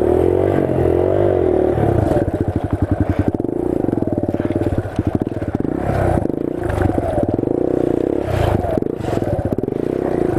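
Supermoto motorcycle engine running at idle with its pitch wavering a little, and a few brief clatters and scrapes.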